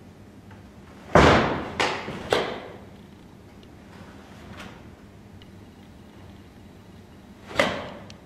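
Sharp snaps and thuds from a karateka performing the kata Gojushiho Dai barefoot on a stage: three in quick succession about a second in, the first the loudest, and another near the end, each ringing on briefly in the hall.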